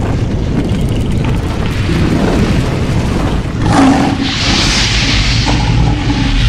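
Cinematic intro sound effects: a loud, deep rumbling boom throughout, with a sudden hit about four seconds in followed by a rushing hiss that fades near the end.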